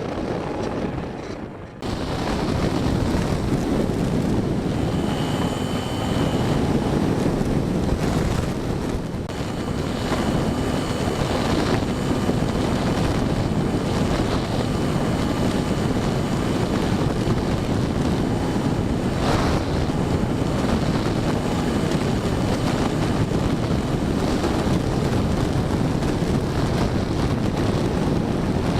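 Steady rush of wind buffeting an action camera's microphone under the wing of an RC trainer plane in flight, jumping louder about two seconds in.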